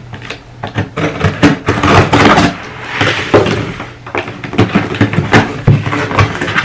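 Scissors cutting the packing tape on a cardboard shipping box, then the cardboard flaps being pulled open and handled, with scraping, rustling and repeated knocks.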